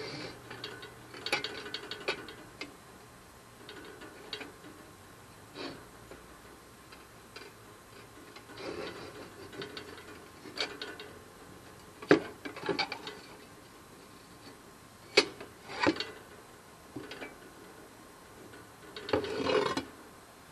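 Glass panes rattling and scraping in the metal frame of a glass terrarium as it is handled and worked apart, with irregular scrapes and a few sharp clinks.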